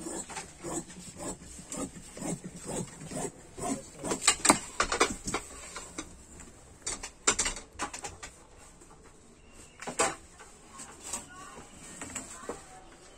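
Large tailor's shears snipping through seat-cover material in a run of crisp clicks over the first five seconds or so. Then knocks and clatter as a steel straightedge and the cut pieces are handled on the cutting table, with one sharp knock about ten seconds in.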